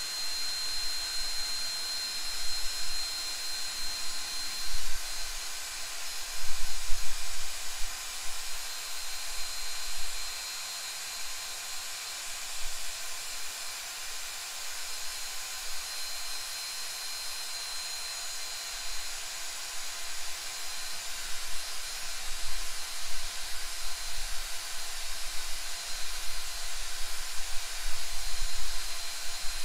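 Power drill running steadily as it stirs epoxy resin in a plastic cup: a steady hiss with a thin high whine, its loudness rising and falling unevenly.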